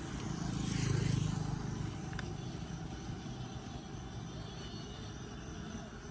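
A vehicle passing by, swelling and fading about a second in, over a steady background hiss.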